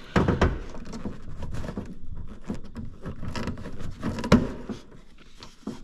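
Irregular clicks, taps and rattles of a car's exterior door handle and its linkage rod being worked loose inside the open door, with one sharp knock about four seconds in.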